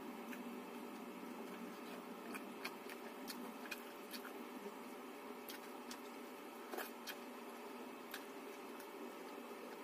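Faint, irregular clicks and soft smacks of eating by hand: fingers picking at fish and mixing rice on a banana leaf, and chewing. A steady faint hum lies underneath.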